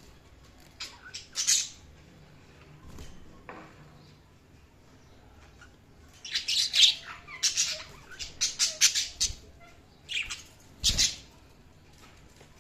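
Budgerigars chirping and squawking in short, sharp calls: a couple about a second and a half in, then after a lull a quick run of calls in the second half.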